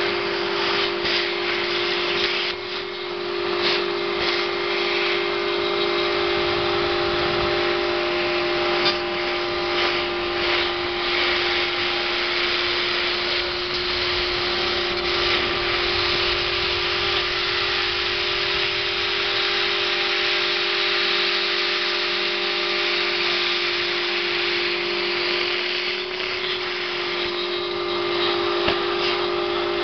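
CNC router spindle running with a steady high hum while its cutter mills PVC, with a constant cutting hiss and scattered small clicks.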